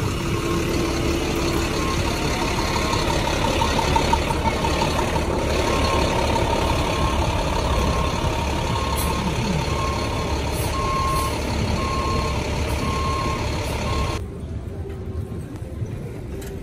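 A vehicle's reversing alarm beeps about once a second over steady street-traffic noise. Near the end the traffic noise drops away abruptly to a quieter background.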